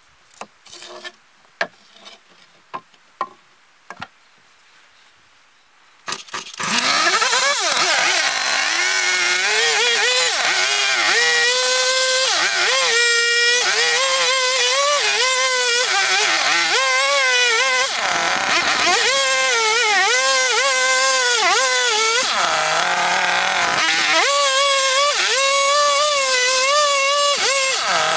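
A few sharp wooden knocks as log poles are laid, then about six seconds in a chainsaw starts and runs loud, its engine pitch rising and falling over and over as it is revved.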